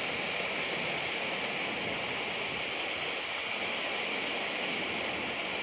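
Water pouring into a canal lock, a steady, unbroken rush.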